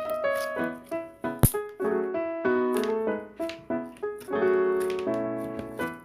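Piano music: a melody of struck notes that ring and die away, with a sharp click about one and a half seconds in.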